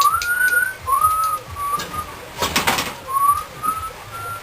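A person whistling a tune: a string of clear, slightly rising notes. A short clatter sounds about halfway through.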